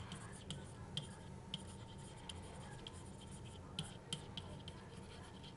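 Faint taps and scratches of a stylus writing on a pen tablet: small, irregular clicks.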